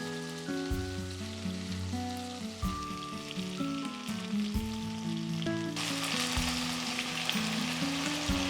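Food sizzling in a pan, the sizzle getting louder about two-thirds of the way through, under background music with a simple stepping melody.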